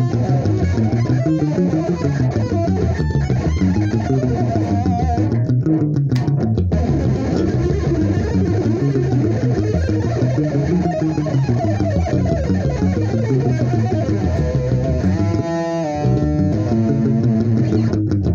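Electric guitar with extra low strings playing a continuous run of fast fusion-style lines over low notes. About three-quarters of the way through, the pitch slides down quickly and the low notes drop out for a moment before the playing picks up again.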